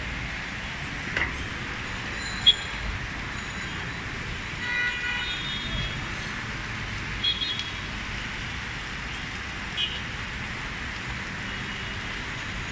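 Steady city traffic hiss with several short vehicle horn toots. The longest toot comes about five seconds in, and shorter ones come a couple of seconds either side.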